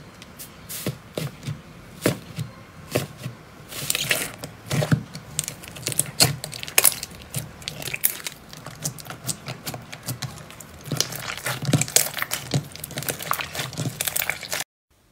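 Hands squeezing and kneading a pink slime, giving irregular sticky crackles and pops, sometimes in quick clusters. The sound stops abruptly near the end.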